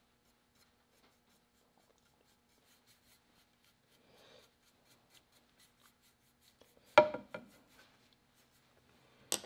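Faint scratching and rubbing of a small paintbrush being drawn over a wooden gunstock while painting in dark grain lines, broken by one loud, sharp knock about seven seconds in and a short click near the end.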